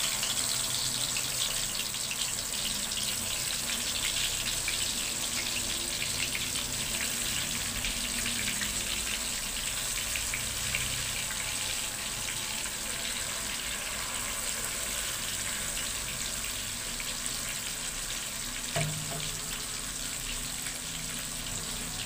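Spice-marinated fish pieces deep-frying in about a cup of hot oil in a kadhai, a steady sizzle with dense crackling as the pieces go in one by one. There is a single short knock near the end.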